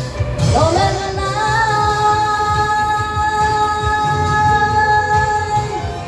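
A woman sings into a microphone over a pop backing track with a steady beat: she slides up into one long held note about a second in and sustains it for roughly four seconds, releasing it near the end.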